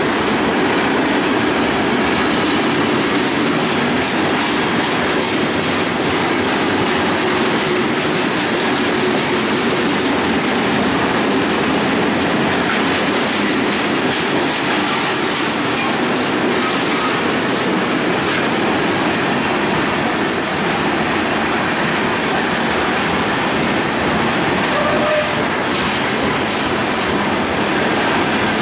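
Freight cars rolling past at close range: a steady rumble of steel wheels on rail with repeated clicking over the rail joints. A brief high wheel squeal comes a little past the middle.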